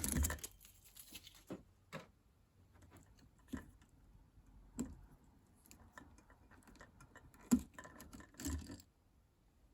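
Scattered small clicks and scrapes of electrical wiring being handled in a wall switch box as a wire nut is twisted off the bundled neutral wires, with one sharper click about seven and a half seconds in.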